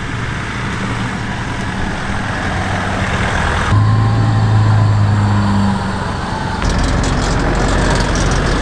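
4x4 vehicle driving on a dirt track, its engine running with a steady low hum over tyre and road noise. The sound changes abruptly twice, about four and about seven seconds in.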